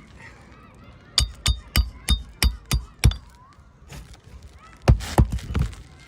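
A hammer driving roofing nails: seven quick strikes about a third of a second apart, then, after a pause of nearly two seconds, three more.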